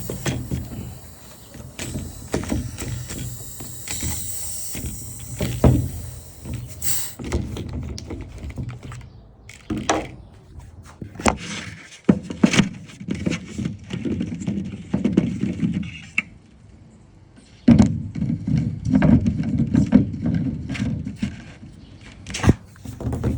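Irregular clicks, knocks and rattles of plastic sprayer parts being handled as the compressor head is taken off an IK e-foamer battery sprayer. For the first seven seconds or so a steady hiss runs underneath, then stops.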